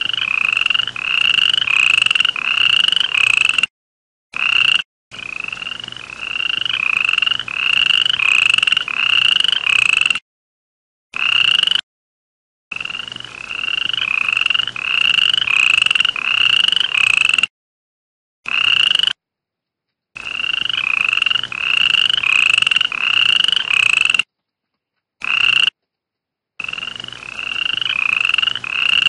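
A frog calling: a steady series of short, high-pitched chirping notes, about two a second, broken several times by abrupt gaps of silence.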